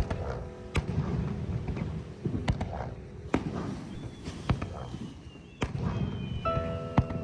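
Fireworks going off: a string of sharp bangs, roughly one every second, over a low rumble of further bursts. Piano music comes back in near the end.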